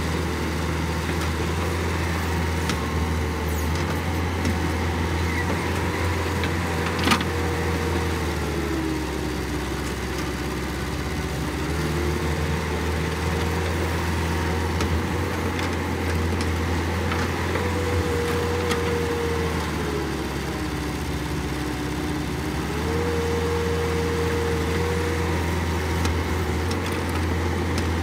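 Older Caterpillar tracked excavator's diesel engine running steadily as it digs and loads dirt, with a whine that rises and falls in pitch every few seconds as the boom and bucket work. A single sharp clank about seven seconds in.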